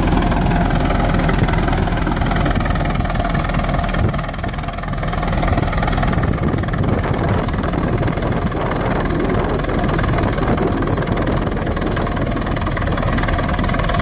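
Large antique tractor engine running steadily while pulling a multi-bottom gang plow through the soil.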